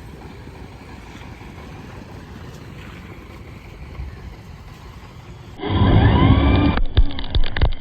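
Steady low background noise, then about five and a half seconds in, an electric RC monster truck running loud: its motor whine rises and falls with the throttle, and several sharp knocks follow near the end as it bounces and lands.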